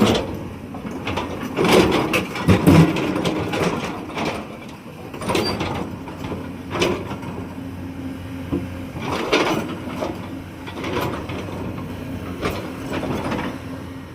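Hyundai R310 hydraulic excavator running, with a steady engine tone under irregular clunks and knocks.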